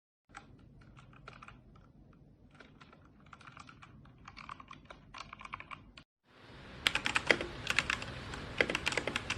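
Typing on a Redragon K617 Fizz 60% mechanical keyboard: rapid key clicks, fainter for about the first six seconds, then after a brief break, louder and closer.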